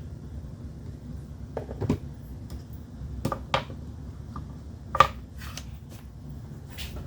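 Scattered light clicks and taps of hand tools and wiring being handled, the sharpest about five seconds in, over a steady low hum.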